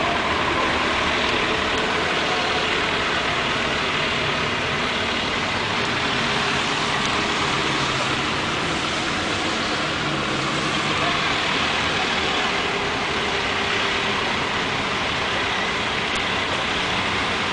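Steady hiss of rain mixed with the traffic noise of vehicles in floodwater, with a faint engine hum standing out about two-thirds of the way through.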